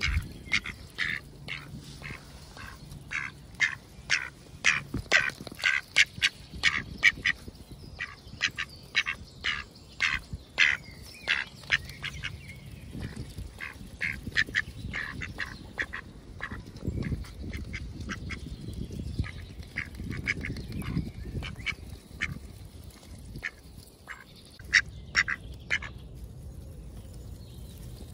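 Mallards quacking close up: a fast run of short, sharp quacks through the first dozen seconds, then fewer and more scattered calls.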